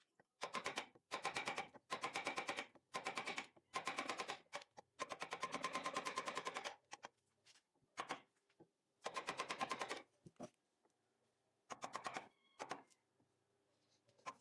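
A small woodworking power tool cutting or carving wood in short bursts, each under a second to about two seconds long. It makes a fast, even rattle, and the bursts come thick for the first seven seconds and more sparsely after.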